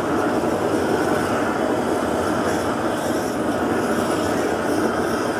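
Handheld gas torch burner running with a steady rushing flame noise while it heats an aluminium alloy wheel rim, the heating stage before the rim is straightened.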